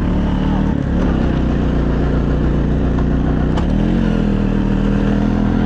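Off-road vehicle engine running steadily while driving through snow. Its pitch rises about four seconds in and then holds at the higher speed.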